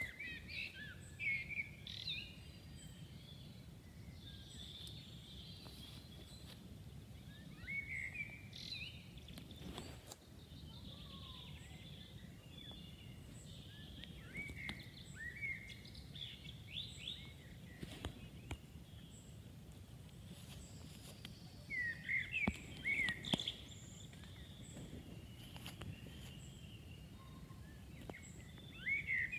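Songbirds chirping and calling in short, scattered phrases, in clusters every few seconds, over a faint steady low rumble of outdoor background noise.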